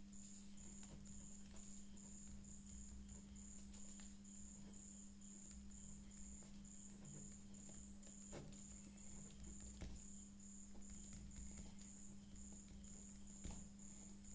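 Near silence: a steady low hum and a faint high chirp repeating about three times a second, with a few faint ticks from a ballpoint pen writing on paper.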